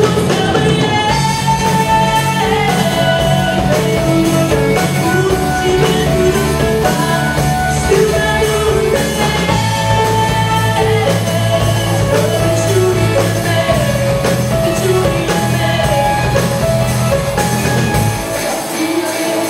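Live pop-rock band playing: electric guitar, bass guitar, keyboard and drums under a female singer's melody. The low bass notes drop away near the end.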